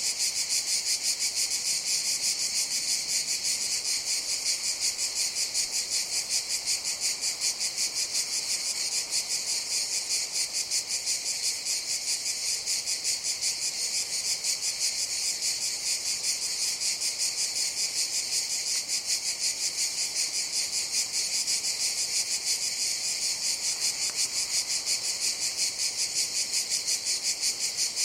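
Cicadas singing in a continuous, high-pitched buzzing chorus that pulses rapidly and never breaks.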